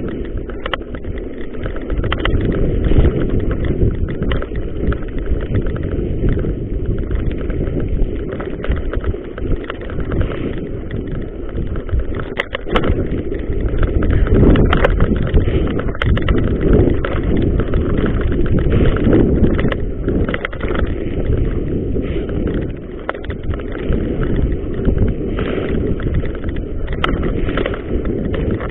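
Mountain bike ridden fast down a rough dirt and gravel trail: a steady rumble of tyre and wind noise, with the bike rattling and clattering over bumps throughout.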